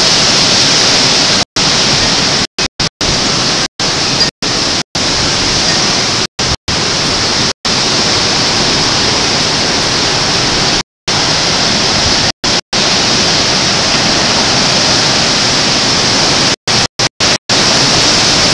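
Hurricane wind and driving rain making a loud, steady noise. The sound cuts out for an instant about a dozen times.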